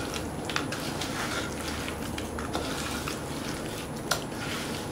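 Wet squelching and squishing of hands kneading rohu fish pieces in a thin, watery masala paste in a steel bowl, with irregular small clicks and one sharper tick a little after four seconds in.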